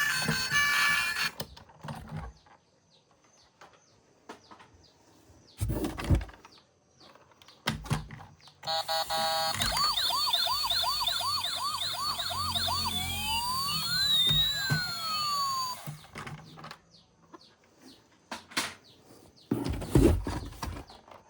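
Battery-powered toy emergency vehicle's electronic siren: a fast repeating yelp at about two cycles a second, then a few seconds of slower rising and falling wail tones, with a low hum underneath. A few knocks before and after it.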